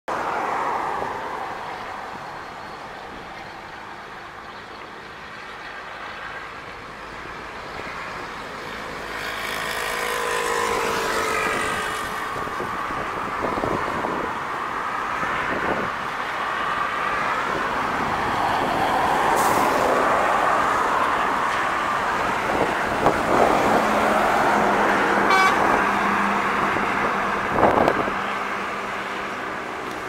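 Highway traffic with a DAF truck hauling a refrigerated box approaching and passing close, its diesel engine and tyres growing louder to a peak and then fading, with other vehicles going by. A pitched tone slides down about ten seconds in.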